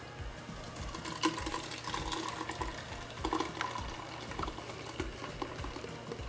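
Thick blended green juice poured from a blender jar into a voile cloth strainer, splashing and gurgling, busiest from about a second in until about four seconds in.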